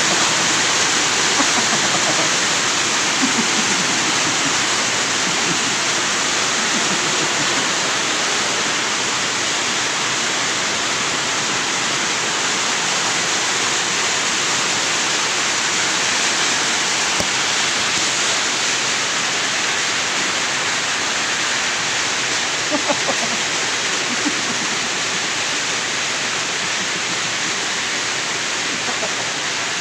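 A loud, steady hiss throughout, with faint voice-like sounds surfacing in it now and then.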